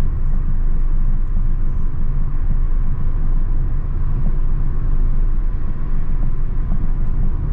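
Steady low rumble of road and engine noise inside a car cruising on a freeway.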